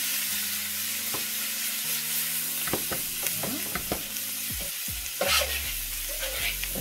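Chicken pieces frying in curry powder in a pan, sizzling steadily, with several short clinks and knocks around the middle.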